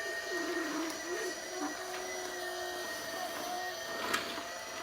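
Battery-powered toy upright vacuum cleaner running with a steady electric whine from its motor. One sharp knock comes about four seconds in.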